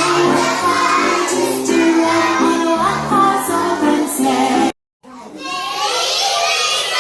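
Children singing a Christmas song over recorded backing music, which cuts off suddenly about two-thirds of the way through. After a brief gap, a hubbub of children's voices follows.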